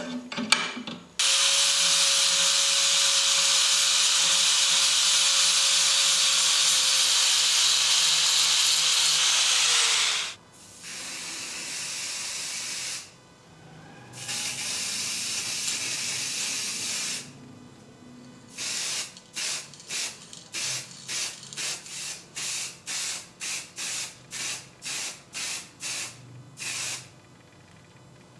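Spray coating hissing onto metal: first one long steady burst of about nine seconds with a faint steady tone in it, then two shorter bursts, then a run of quick short sprays, a little more than one a second.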